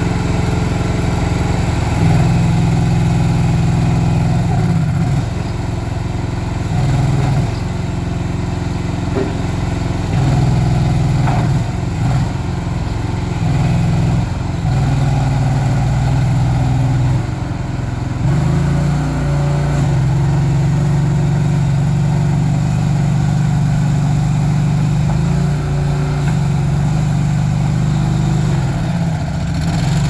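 Engine of a 2024 Agrotk KRT232 stand-on mini track loader running steadily while it is driven and its bucket worked, the engine note changing in steps every few seconds as speed and load change.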